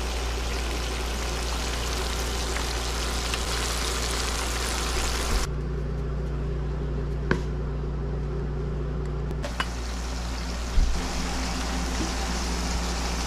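Steady kitchen background noise, a hiss over a low hum, broken by a few short clicks and knocks. The hiss drops out for about four seconds in the middle, leaving only the hum, then returns.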